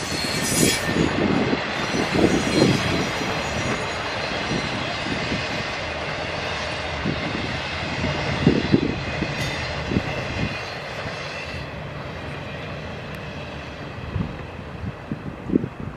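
Intermodal freight train rolling past, its cars rumbling with repeated wheel clacks over the rail joints. The sound thins out and fades near the end as the last car goes by.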